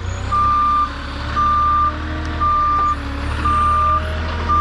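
Forklift reverse alarm beeping about once a second, one steady high tone each time, five beeps, over the low drone of the running engine as the machine backs up.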